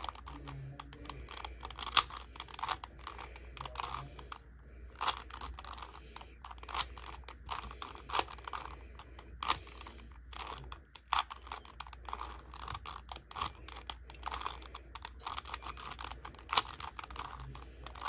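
A 3x3 Rubik's cube being turned quickly by hand, its plastic layers clicking and clacking in an irregular run of rapid turns.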